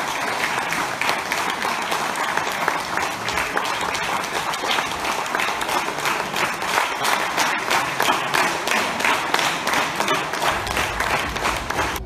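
Audience applauding: dense, steady clapping.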